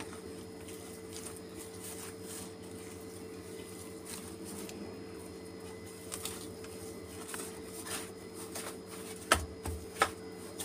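Hands kneading soft semolina dough in a steel plate: faint squishing and rubbing, with a couple of sharp knocks against the metal plate near the end. A steady faint hum runs underneath.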